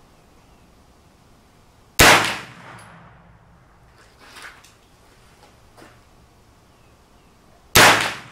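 Two single shots from a CMMG MK9T 9mm AR-15 carbine, about six seconds apart, each a sharp loud crack with a short ringing tail.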